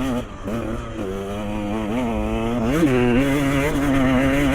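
Dirt bike engine running on a trail ride, its note rising and falling a little with the throttle, with a quick rev about three seconds in and then a slightly higher, steadier pull.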